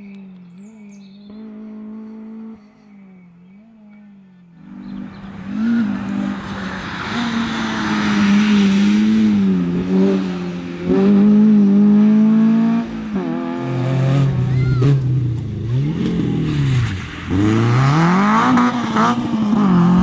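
Rally car engines. First a fainter car engine, then from about five seconds in, hatchback rally cars passing close and loud, revving hard, their engine note swooping up and down with each gear change and lift, over the hiss of tyres on the loose road surface.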